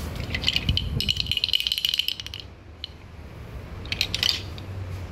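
Wooden toy rattling: a fast run of clicks lasting about two seconds, then a shorter burst near the end.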